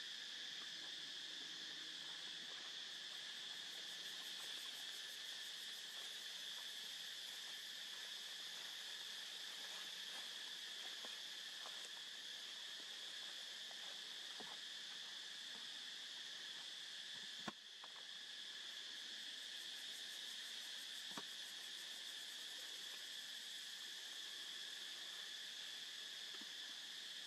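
Steady, high-pitched drone of chirring insects, with one sharp click about two-thirds of the way through.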